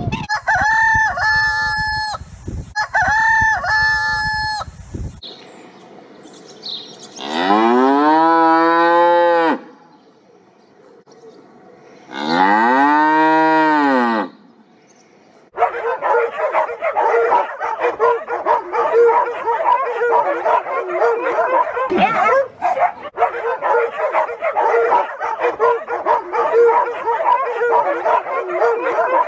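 Black swans giving two short trumpeting calls, then a cow mooing twice, each moo long and rising then falling in pitch. From about halfway through, a large crowd of dogs barking together without a break.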